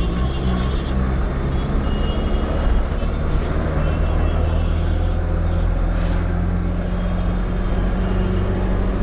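Inside a moving city bus: a steady low engine drone with road rumble and cabin rattle. There is one sharp click or knock about six seconds in.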